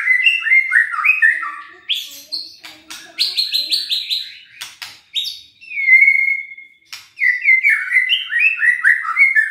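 Male white-rumped shama singing loudly. Quick runs of whistled notes step down in pitch, then come a patch of sharp clicks and a fast run of higher repeated notes. About six seconds in there is one long held whistle, followed by another falling run.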